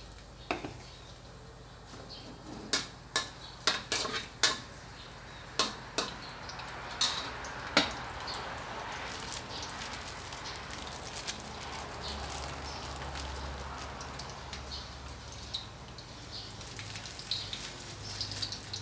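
Chopped garlic sizzling in hot oil in a steel wok, with about a dozen sharp metal clicks and knocks in the first eight seconds, then a steady hiss of frying.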